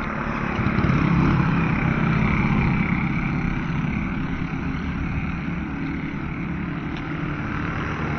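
Motorcycle engine passing along the road, loudest about a second in and then easing off.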